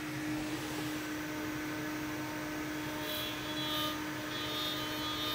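CNC router spindle running at 18,000 RPM with a steady whine, its 5/16-inch low-helix up-cut end mill roughing a pocket in acetal (Delrin). A higher-pitched whine joins about three seconds in as the cutter works into the sheet.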